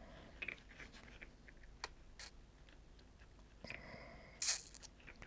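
Faint scattered clicks and crackling handling noises, with a brief louder crackle about four and a half seconds in.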